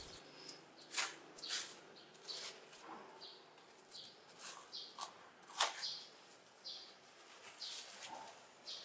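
Plastic cling wrap crinkling and rustling as it is peeled off a block of dough, in faint, short crinkles at irregular intervals.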